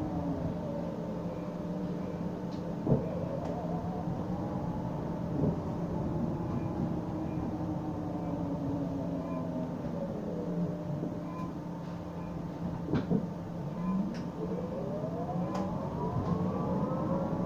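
Bus interior noise: the drivetrain's whine rises and falls in pitch with the bus's speed, dropping as it slows at the start and climbing again near the end as it pulls away. Under it is a steady hum, with a few sharp rattles and knocks from the body, the loudest about three seconds in.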